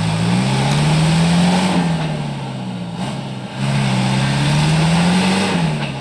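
A loaded dump truck's diesel engine revving hard in two long surges, each climbing in pitch and then dropping back, as it labours through mud.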